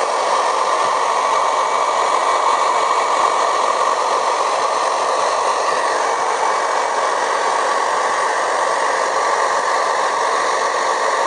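Electric wood router running steadily.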